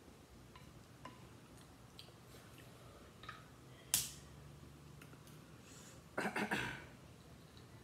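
Snow crab leg shells being cracked and pulled apart by hand: scattered small clicks and one sharp snap about four seconds in. A short rough burst of sound comes about six seconds in.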